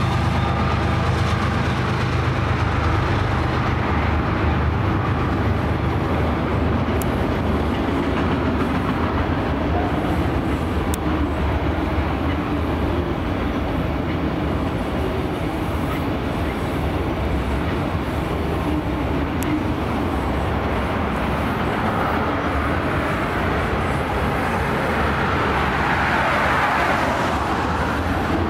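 Freight cars of a passing train, autoracks then boxcars, rolling across a railroad overpass: a steady rumble of steel wheels on rail with a few faint clicks. A higher hiss swells near the end.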